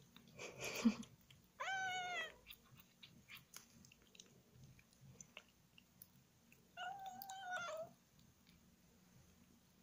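A kitten meows twice: a short meow that rises and bends down about two seconds in, and a longer, more level one about seven seconds in. Between the meows come faint clicks of a Siamese kitten licking and chewing, and a brief noisy rustle about half a second in.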